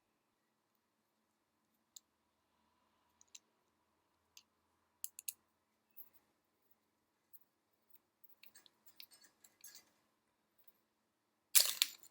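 Small scattered clicks and taps of plastic joystick parts being handled and screwed back together, with a louder burst of handling noise near the end.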